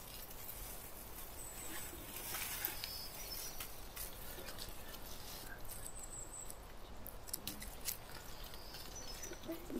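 Faint rustling and scattered small clicks of people moving through huckleberry brush, with a few brief high chirps.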